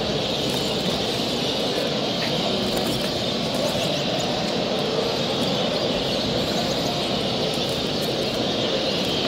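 A steady din of many caged show birds, canaries and finches, chirping at once over a constant background rumble, with many short high chirps throughout.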